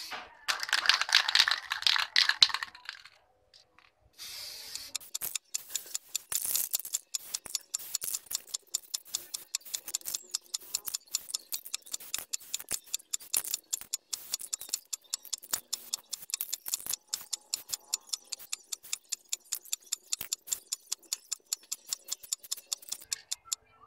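Aerosol spray-paint can spraying metallic black paint, hissing for the first few seconds and again briefly around four seconds in. This is followed by a long, even run of sharp clicks, about five a second, that stops just before the end.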